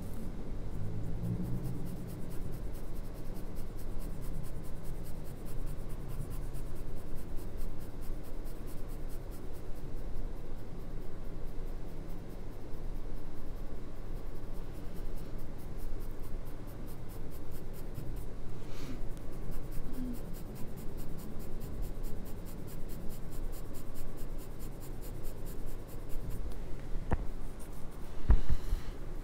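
Graphite pencil shading on drawing paper: a steady, scratchy rubbing of the lead across the paper's grain, with a few sharp taps near the end.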